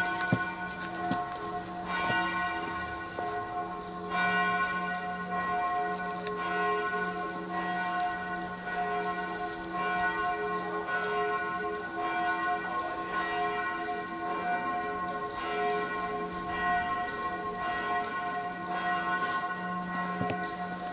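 Church bells pealing: several bells ringing together, with fresh strokes about once a second over a sustained deep hum.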